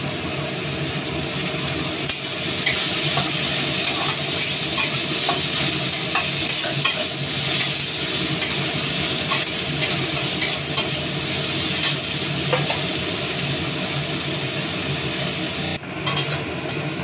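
Diced carrots and chopped green beans sizzling in hot oil in a metal kadai while a flat metal spatula stirs them, scraping and tapping against the pan. The sizzle is steady, with small clicks of the spatula on the metal, and cuts out for a moment near the end.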